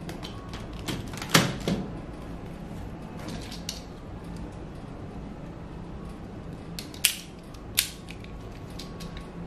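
Hard plastic parts of a DX Daivoyager robot toy clicking and knocking as they are unclipped and handled, a few sharp clicks, the loudest about a second in and two more near the end, over a steady low hum.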